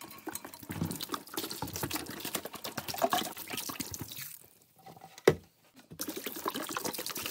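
Distilled vinegar poured from a jug into a container to submerge a cast iron griddle. The liquid splashes steadily for about four seconds, pauses with a single knock, then pours again.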